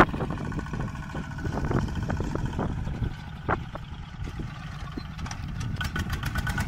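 Engine of a small Cambodian-built tractor running steadily as it works the soil, with scattered sharp knocks and a rapid ticking that joins near the end.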